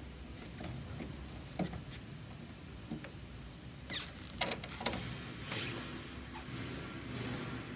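Screwdriver working on terminal-block screws in an electrical control cabinet: scattered small clicks and scrapes, with a cluster of sharper clicks about four to five seconds in, over a low steady hum.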